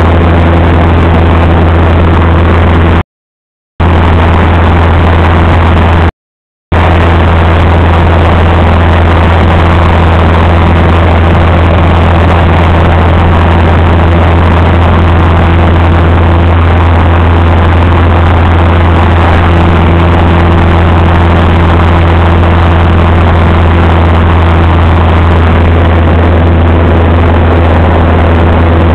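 Light aircraft's engine and propeller droning steadily, a loud low hum with a noisy rush above it, as heard from inside the cabin. The sound cuts out completely twice for under a second, about three and six seconds in.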